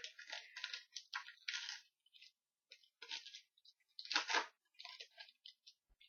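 A trading-card pack wrapper being torn open and crinkled, a series of irregular short rustles and crackles, loudest about four seconds in.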